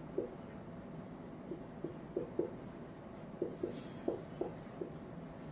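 Marker pen writing on a whiteboard: a quiet run of short, irregular squeaks and strokes from the tip on the board.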